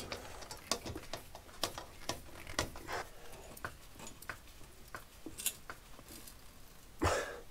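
Scattered light clicks and taps of a screwdriver and a metal boiler mounting frame being handled and pressed against a wall, with one louder knock near the end.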